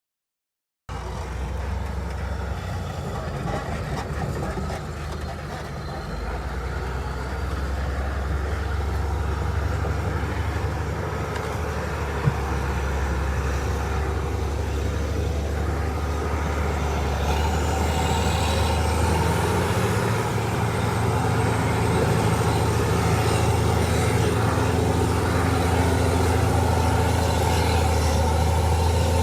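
Heavy diesel engine running steadily and gradually getting louder, with a faint high whine coming in a little past halfway and one sharp click near the middle.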